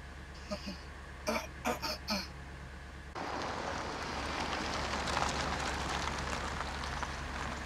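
A person makes four short throaty sounds. About three seconds in, a sudden cut to a van driving along a dirt road: a steady, louder rush of tyres on gravel and road noise.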